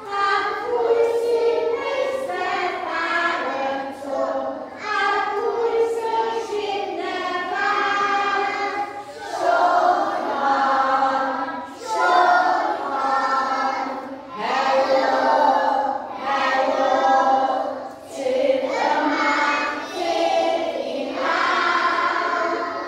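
A class of nursery-age children singing a Christmas song together in Welsh, in short phrases of about two seconds with brief breaths between them.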